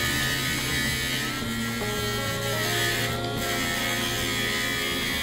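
Dremel 7300-PT cordless pet nail grinder running and grinding down a dog's claw: a steady high motor whine that wavers slightly in pitch, with a gritty grinding hiss over it.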